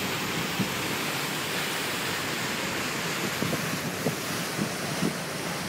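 Steady rush of wind on the microphone mixed with the churning water of a river cruise ship's wake.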